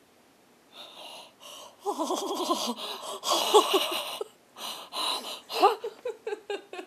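Women's hard, wheezy laughter in broken bursts with gasping breaths, starting about a second in.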